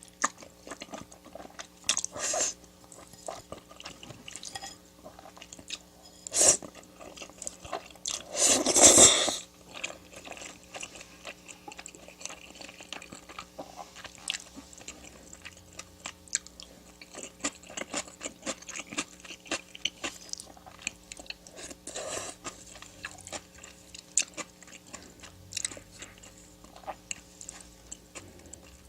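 Close-miked chewing and biting of food, with a thick stream of irregular wet clicks and a few sharper bites. There is one louder, longer burst about nine seconds in.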